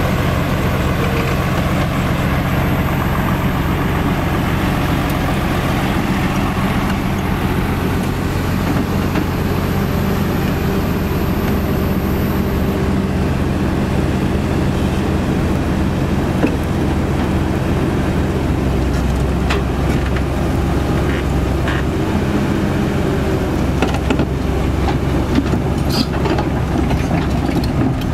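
Heavy diesel engines of a CAT 320D excavator and a self-loader truck running steadily while the excavator crawls down the truck's tilted steel bed. Scattered knocks come in the last several seconds.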